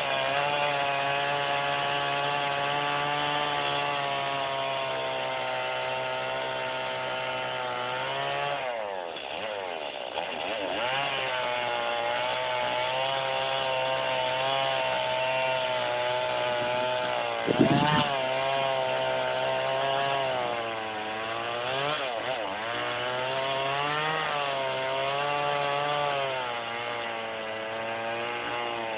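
Two-stroke chainsaw running hard while cutting wood, its engine pitch dipping and recovering several times as the chain bites into the cut. A sharp knock sounds a little past halfway.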